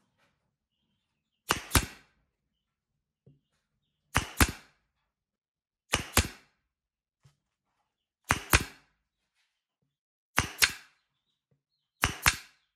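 A pneumatic nail gun firing six times, about every two seconds, driving nails into plywood. Each shot is a sharp double crack.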